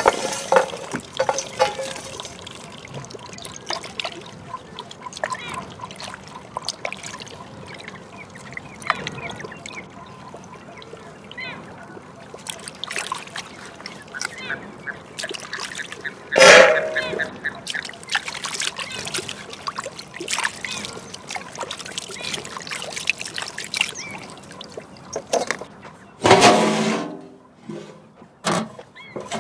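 Water pouring and trickling amid many small clinks and knocks, with two short loud sounds, one about halfway through and one near the end.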